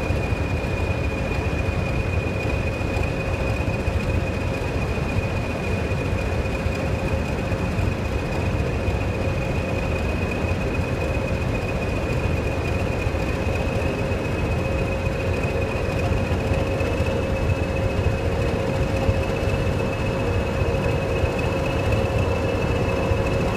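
Diesel locomotives of a multiple-headed train idling, led by Class 20 D8059, whose English Electric engine gives a steady low rumble under a high turbocharger whistle. Near the end the whistle rises a little as the engines take power and the train starts to move.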